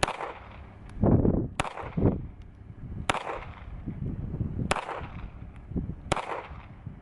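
Five shots from a Springfield Armory 911 .380 ACP pistol, evenly paced about a second and a half apart.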